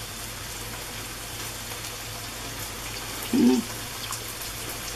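Steady sizzling hiss of food frying in a pan on the hob, with a brief voiced murmur about three seconds in.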